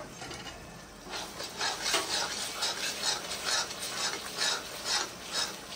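A cooking spoon stirring spiced yogurt into frying onion-tomato masala in a pan. It scrapes in quick, even strokes that start about a second and a half in, over a light sizzle.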